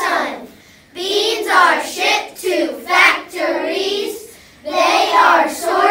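A group of young children singing or chanting an action song together, in short phrases with brief pauses between them.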